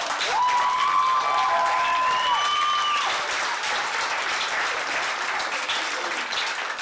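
Audience applauding after a spoken-word poem, with a few shrill cheers in the first three seconds. The clapping dies away near the end.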